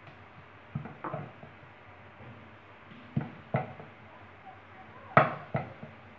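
Wooden rolling pin and round wooden rolling board knocking while small rounds of dough are rolled out: three pairs of short knocks about two seconds apart, the last pair the loudest.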